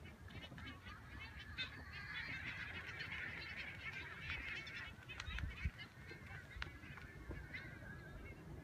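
A large flock of seabirds over the water, calling all at once: a dense chatter of many short overlapping calls, thickest in the first half. A low rumble runs underneath, with a couple of thumps just past the middle.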